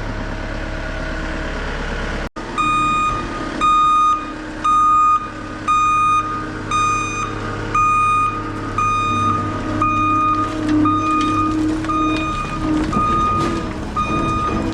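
A CAT 299 skid loader's diesel engine running, with its backup alarm beeping about once a second as it reverses; the beeping starts after a brief cut a couple of seconds in.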